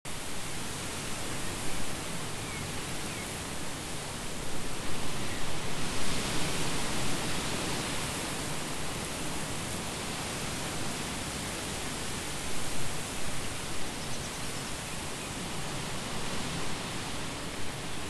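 Strong wind blowing through trees, a steady rushing hiss of leaves. It swells in a stronger gust about five to seven seconds in and briefly again near thirteen seconds.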